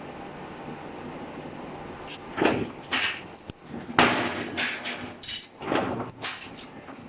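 Distribution box roll forming machine running with a steady hum. From about two seconds in comes a series of loud, rough bursts and knocks as its hydraulic and pneumatic punching station works, the loudest about four seconds in.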